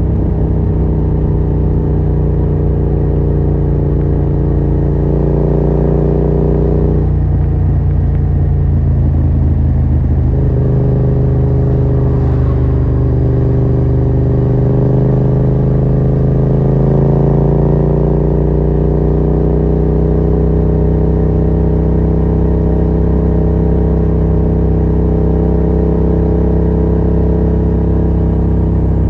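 Yamaha MT-07's 689 cc parallel-twin engine running loud through a Yoshimura R77 exhaust with no dB killer, at a steady cruise. The note drops away briefly about seven seconds in, comes back about three seconds later, then rises slowly as the bike pulls.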